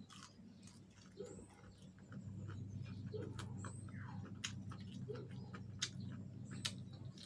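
Close-miked eating of a fried chicken wing: irregular crunches, wet mouth clicks and smacks while chewing, over a steady low hum that grows a little louder about two seconds in.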